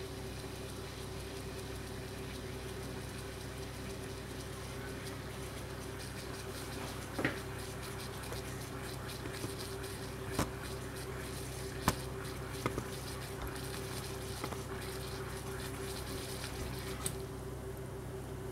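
Steady fizzing and bubbling of gas from electrolysis in the 800 ppm tap water, which froths as current passes through it, over a steady electrical hum. A few sharp clicks or pops sound now and then.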